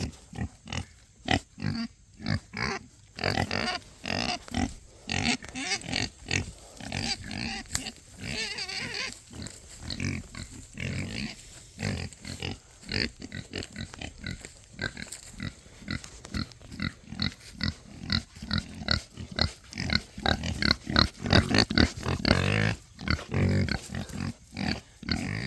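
Pigs grunting again and again, many short grunts in quick succession.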